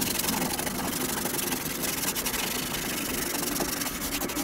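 Sanding block rubbed back and forth over a styrofoam cooler, a steady scratchy scrubbing, abrading off leftover paper label.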